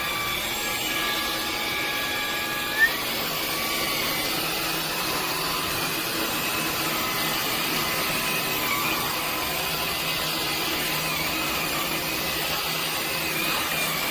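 Dreame H12 Dual cordless vacuum running steadily with a whine; a short sharp sound comes about three seconds in, and the whine steps up in pitch at the same moment.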